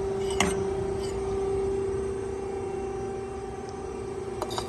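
Hydraulic pump of a 120-ton CNC press brake running with a steady tone, the machine idling between bends. Two short metallic knocks come about half a second in and near the end as the bent steel strip is handled.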